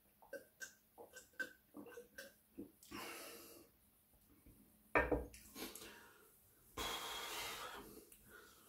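A man gulping water from a glass, a quick run of swallowing clicks, then breathing out. About five seconds in comes a short burp, and near the end a longer breath out.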